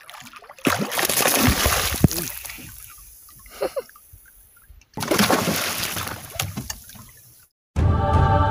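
A hooked bigeye trevally thrashing and splashing at the water's surface, in two bursts that each fade off. Music starts near the end.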